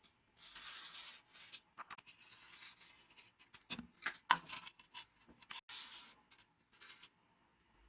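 Hand-tool rubbing and scraping strokes from work on a hatchet, a few separate strokes with sharp clicks and knocks between them, the loudest knocks about four seconds in.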